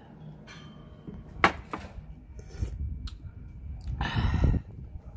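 A raw oyster slurped off its half shell, a short wet suck about four seconds in, after a few light knocks and handling sounds of the shell and vinegar bottle.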